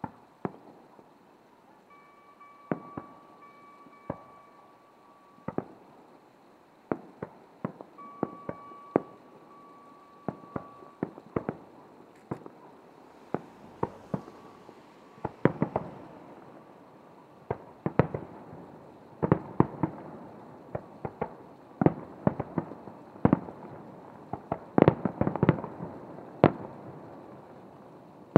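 Fireworks display: aerial shells bursting with sharp bangs that echo back. The bursts come singly and spaced out at first, then thicker and faster from about halfway, with the loudest volley near the end.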